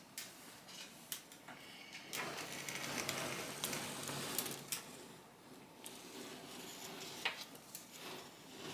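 Scattered light clicks and scraping on plastic food containers and a bowl of bird mash, with a busier stretch of rustling and scraping a couple of seconds in.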